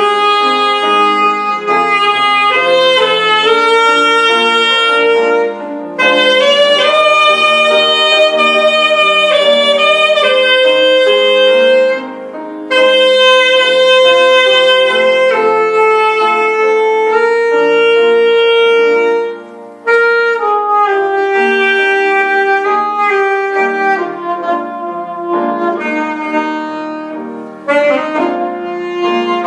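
Saxophone playing a slow melody in long held notes over an accompaniment, in phrases of several seconds broken by brief pauses for breath.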